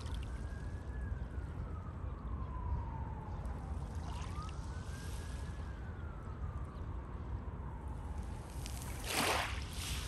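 Sea surf with a steady low rumble and, through it, a distant emergency-vehicle siren wailing slowly up and down twice. A wave breaks with a short hiss about nine seconds in, the loudest moment.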